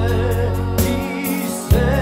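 Armenian Christian worship song: a voice sings with vibrato over bass and drums, with a drum hit near the start and another just before the end.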